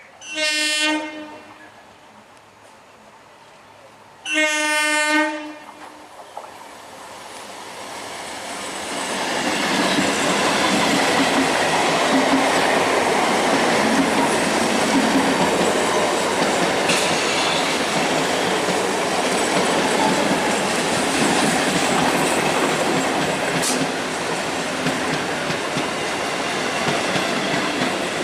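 Two short blasts of an electric multiple unit (EMU) train's horn, then an EMU local train running past, its wheels clattering over the rail joints, the sound building over a few seconds and staying loud.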